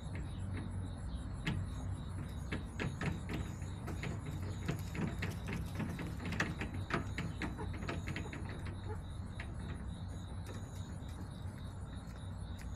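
Hens pecking and scratching in the coop: a run of irregular light taps and clicks, busiest in the middle, over a steady low hum.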